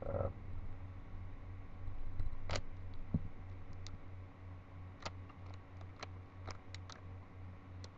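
Plastic clicks of a Rubik's Cube's layers being turned by hand, coming irregularly and several in quick succession about five to seven seconds in.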